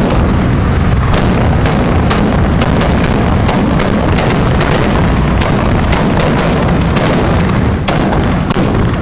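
Ground fireworks going off in a loud, continuous barrage of bangs and crackling, with sharper cracks standing out many times a second.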